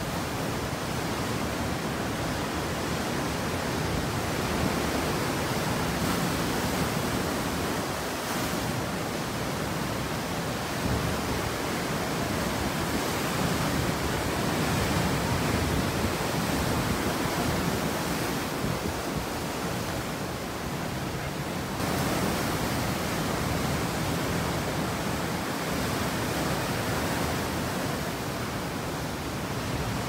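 Steady rushing of ocean surf breaking on the rocks, swelling and easing a little, with some wind.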